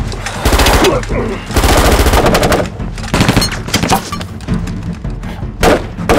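A film's finished sound mix: automatic gunfire in two long rapid bursts in the first three seconds, then scattered shots and a heavy hit near the end, laid over a music score.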